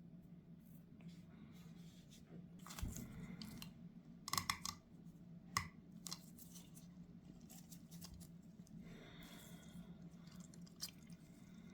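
Small carburetor parts and hand tools being handled on a workbench: a scrape about three seconds in, a quick cluster of sharp metallic clicks around four and a half seconds and a single one near six, then a rustling scrape near the end. A steady low hum runs underneath.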